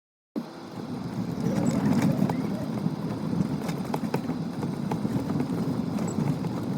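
A vehicle driving over a rough, unpaved road: a steady low rumble with scattered clicks and rattles, starting abruptly just after the start.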